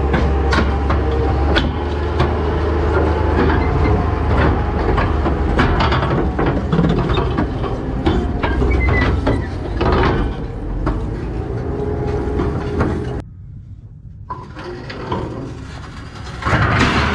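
Nodwell tracked carrier's engine running low under a steady rumble while its steel-cleated rubber tracks clank and rattle rapidly as it crawls over the trailer. The noise drops off suddenly about 13 seconds in, and a brief loud rush comes near the end.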